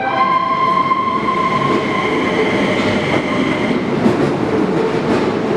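Keio Liner electric commuter train pulling into the platform: its horn holds one high note for about the first two seconds. Then comes the rolling rumble of the train, with a few faint clacks and a steady whine coming in about four seconds in.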